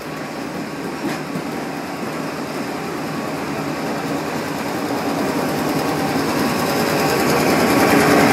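Passenger carriages rolling slowly past on the rails, with the engine of diesel locomotive 4918 at the train's rear growing steadily louder as it draws near, its steady drone strongest near the end.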